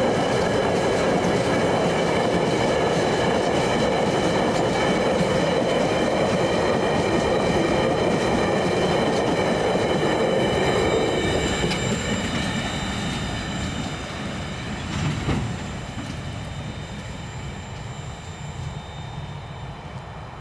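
TasRail freight train rolling past, its wagon wheels running on the rails with a steady high-pitched squeal. About halfway through, the sound starts to fade as the train moves away.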